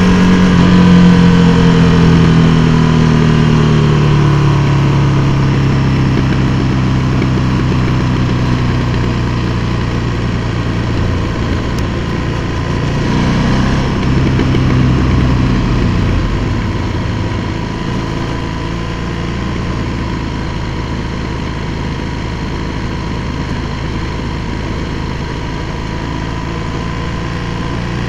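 KTM 1290 Super Duke R's V-twin engine running on the move inside a road tunnel, its note falling over the first few seconds as the bike slows, with wind and road noise. A short swell in engine sound around the middle, then a steadier, quieter running note.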